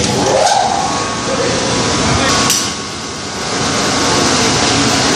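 Motor-driven laboratory test rig running with a steady, loud mechanical noise. A sharp click about half a second in and another about two and a half seconds in, with a brief drop in loudness just after the second.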